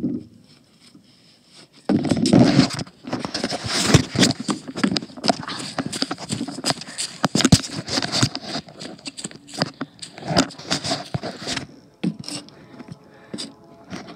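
Rustling, scraping and knocking from a phone held in the hand while someone climbs up onto a wooden play set. It starts suddenly about two seconds in as a dense run of knocks and scrapes and thins out near the end.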